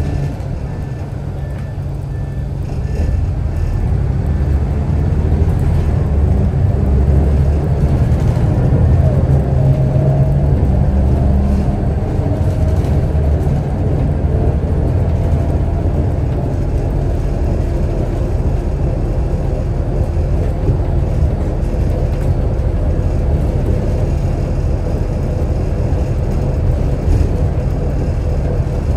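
Scania DSC9 9-litre six-cylinder turbo diesel of a Scania L94UB bus with a ZF Ecomat automatic gearbox, running under way. The engine builds up from about two seconds in, is loudest a few seconds later, then settles to a steady, lower run.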